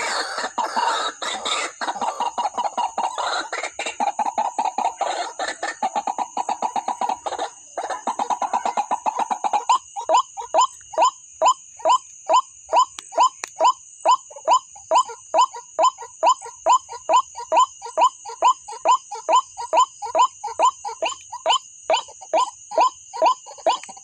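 White-breasted waterhen calling: a fast chattering run for the first ten seconds or so, then a steady series of strong croaking notes, about two a second.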